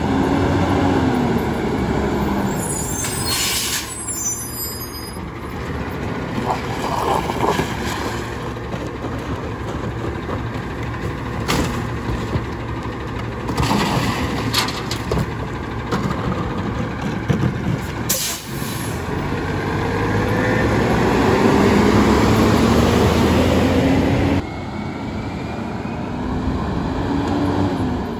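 Front-load garbage truck working a street: its diesel engine runs and revs up and down, with air brakes hissing and trash cans and refuse banging into the bin on its forks as cans are emptied by hand.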